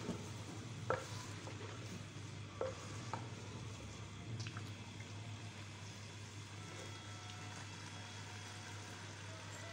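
A wooden spoon stirring chunks of bottle gourd through mutton in an earthenware handi, with a few sharp knocks of the spoon against the clay pot in the first half, over a steady sizzle of the meat frying in its oil.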